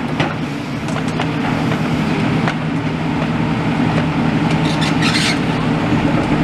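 Heavy demolition machine's engine running steadily while it pulls metal poles and girders out of the rubble, with scattered metal knocks and clanks and a short harsh scrape about five seconds in.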